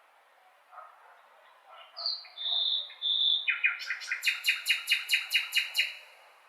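A blackbird singing: a short clear whistle, then one held for about a second, then a rapid run of about a dozen repeated notes, some five a second, lasting about two and a half seconds.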